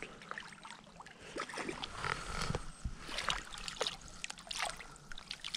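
Shallow water splashing in irregular spurts as a landing net is scooped through it under a hooked rainbow trout.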